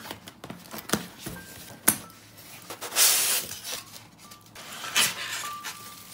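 A cardboard box being opened. Scissors snip and click through the packing tape, then there is a loud rasping scrape as the styrofoam insert is worked out of the box about three seconds in. Crinkling of a plastic wrapper comes near the end.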